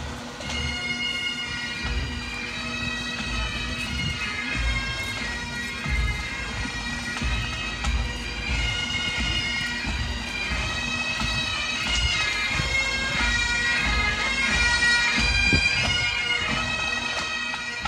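Pipe band playing: Highland bagpipes sounding a melody over a steady drone, with a bass drum beating at a regular pace.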